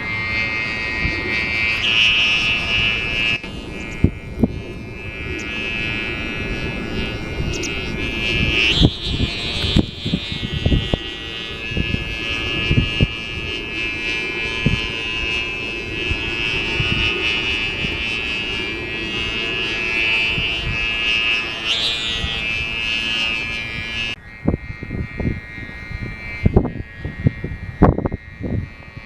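Unari (bow-string kite hummer) on a kama-dako kite buzzing in strong wind, a high droning tone that swells and fades with the gusts. The drone drops away about 24 seconds in. Wind buffets the microphone throughout.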